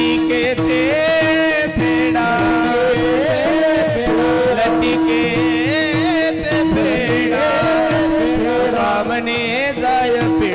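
Devotional kirtan music: a voice sings a wordless, richly ornamented melodic line with quick wavering turns over a steady held drone note, with percussion strokes keeping time.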